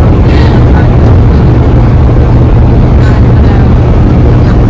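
Car cabin at highway speed: a loud, steady low rumble of road and engine noise.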